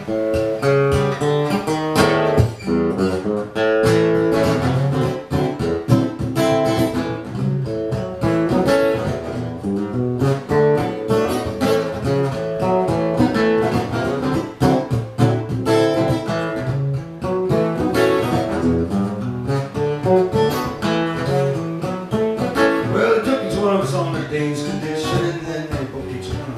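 Acoustic guitar played solo, a busy run of picked notes and chords.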